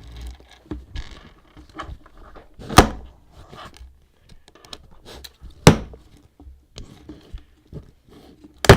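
Three heavy thuds about three seconds apart, made as foley for slow, heavy footsteps, with faint small knocks and rustling between them.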